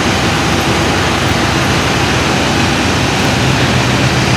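Steady, even rushing noise of blowing air, unbroken and unchanging in level.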